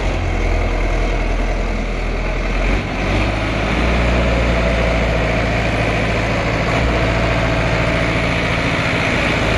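Sonalika Tiger DI 55 tractor engine running steadily under load while it pulls a PTO-driven rotavator through soil. The engine note dips briefly about three seconds in, then runs a little louder.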